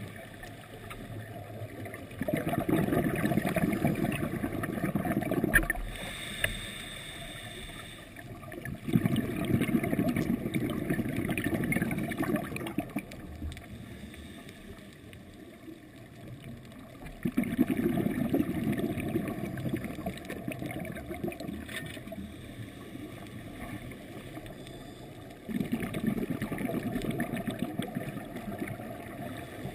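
Scuba regulator exhaust bubbles rushing and burbling past the underwater camera in four long bursts, one about every eight seconds, with quieter stretches between: the slow breathing of the diver holding the camera.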